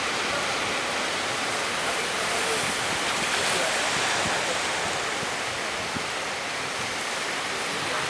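Sea waves breaking and washing in the surf, a steady rushing noise.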